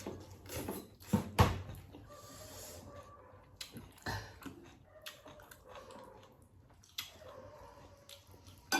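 Close-up eating sounds: chewing and mouth noises, with a few sharp knocks of tableware. The loudest comes about a second and a half in.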